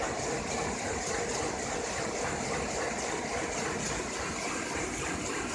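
Sheet-fed offset printing press running, a steady mechanical noise without pause.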